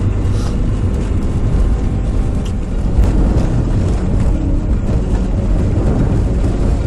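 Cabin noise of a four-wheel-drive car driving over snow-covered sea ice: a steady low engine and tyre rumble, with a single thump about three seconds in.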